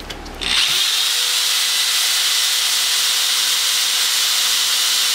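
Electric drill with a twist bit boring into a broken steel bolt, enlarging the pilot hole before a bolt extractor goes in. It starts about half a second in and runs at a steady speed with an even whine.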